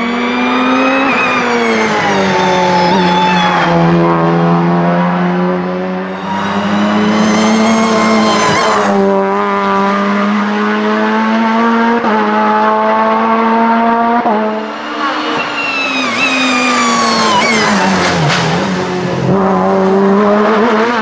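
VW Polo G40 1.4 hillclimb race car's engine at full throttle. Its pitch climbs and drops several times as it revs up through the gears, with brief lifts in between.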